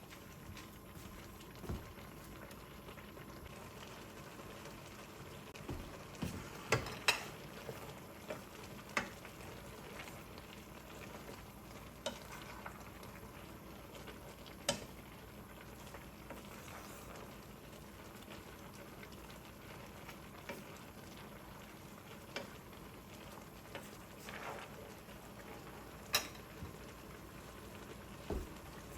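Pot of spicy ramen with rice cakes and cabbage boiling with a steady bubbling hiss, with scattered light clinks of a utensil against the pot as it is stirred.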